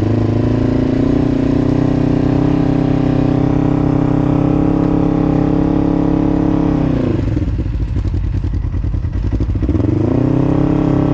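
Electric winch motor running under load with a steady whine as it pulls a rolled-over side-by-side back onto its wheels. It runs for about seven seconds, winds down with a falling pitch, then starts again near the end.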